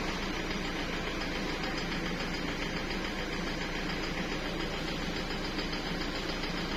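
An engine running steadily at idle, its sound even throughout.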